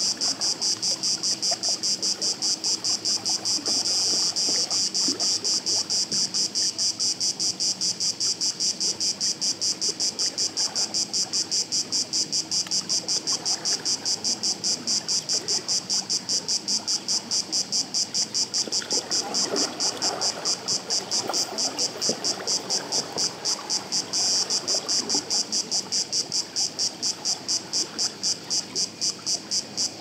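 Insects chirping in a loud, high, even pulse of about four chirps a second, with faint water lapping among the reeds underneath, a little stronger past the middle.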